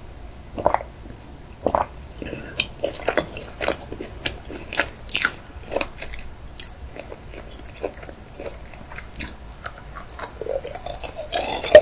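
Close-miked eating sounds: wet mouth clicks and chewing, a sharp crack about five seconds in as a round macaron-style chocolate is split in two, then biting and crunching into the chocolate near the end.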